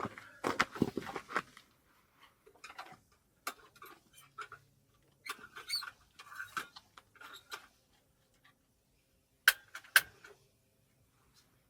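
Irregular rustling and small clicks of things being handled at close range, with two sharp clicks about half a second apart a little past the middle.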